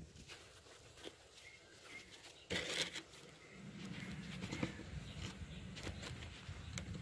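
Fingers handling a phone, rubbing and bumping against its microphone. There is a sharp knock about two and a half seconds in, a few lighter taps, and a low rumble of handling noise through the second half.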